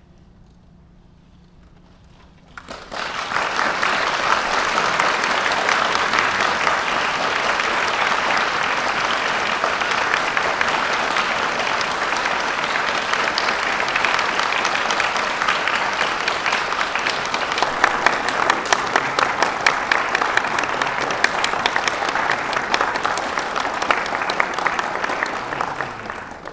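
A concert audience applauding. A short quiet stretch, then dense clapping breaks out about two and a half seconds in, holds steady and dies away near the end.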